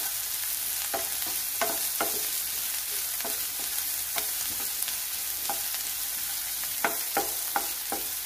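Chopped onion and green chilli sizzling in hot oil in a nonstick frying pan, stirred with a wooden spatula. Steady frying hiss, with light, irregular knocks and scrapes of the spatula against the pan.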